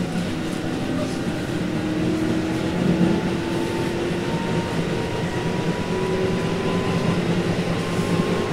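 Tobu 8000-series electric train, heard from inside motor car MoHa 8266: the resistor-controlled TM-63 traction motors whine with a slowly rising pitch as the train gains speed, over steady wheel and rail rumble.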